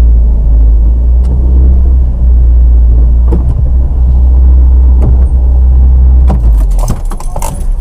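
Volkswagen Passat B1's engine running, heard from inside the cabin as a steady low rumble; it stops about six seconds in, followed by a quick run of clicks and knocks.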